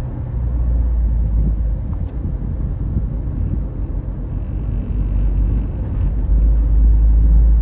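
A car driving on city streets, heard from inside it: a steady low road and engine rumble that grows louder near the end.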